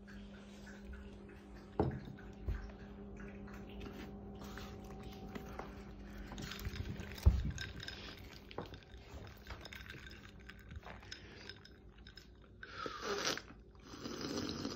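Ice clinking in a glass of fizzy drink, with a few sharp knocks. Near the end a small dog gnaws and worries at a toy in short noisy bursts.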